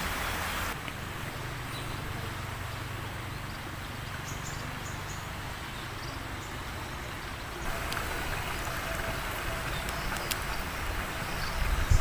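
Steady outdoor background noise with a faint low hum and a few faint high chirps or ticks; the noise drops about a second in and rises again near the end.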